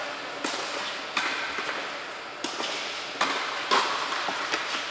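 Tennis balls being struck by rackets and bouncing on a hard court, about six sharp pops at uneven intervals, each echoing in a large indoor tennis hall.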